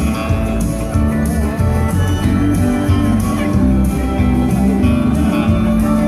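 Country music with guitar over a steady beat, played loud over loudspeakers for line dancing.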